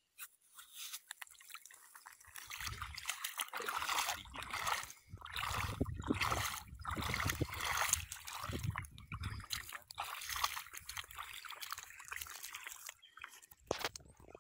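River water sloshing and trickling in irregular surges, with a low rumble through the middle.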